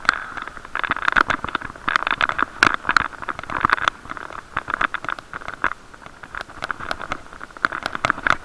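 Bicycle ride heard through an action camera's waterproof case: muffled road noise with many irregular clicks and knocks as the camera and mount rattle over the road surface.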